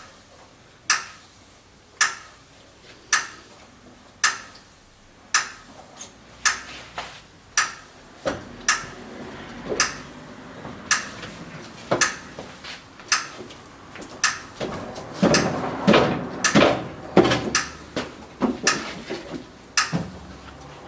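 Metal tools clicking and clanking against a motorcycle wheel rim as a tyre is worked onto it: first a sharp click about once a second, then a busier, irregular clatter with some scraping.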